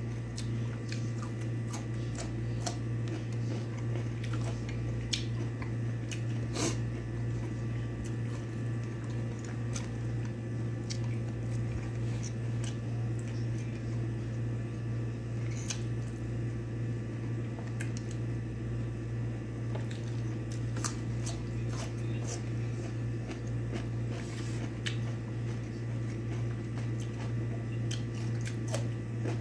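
Close-up eating sounds: scattered bites, crunches and wet chewing as someone eats fresh cucumber sticks and rice by hand. A steady low hum runs underneath.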